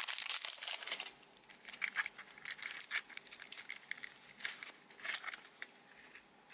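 Plastic wrapping crinkling and tearing as a surprise egg's contents are unwrapped: a dense rustle in the first second, then scattered crinkles and clicks that thin out.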